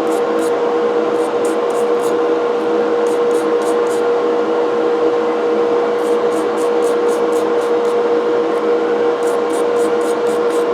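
A wire brush scrubbing the burr of a cast-iron coffee grinder, in runs of quick strokes about three a second that start and stop several times. Under it runs a loud steady hum with a constant whine.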